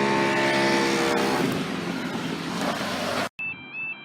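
Diesel train running past a level crossing: its engine tones fade over the first second and a half into the rumble of wheels on rail. A little over three seconds in, it cuts off abruptly and a level crossing's two-tone warbling alarm begins.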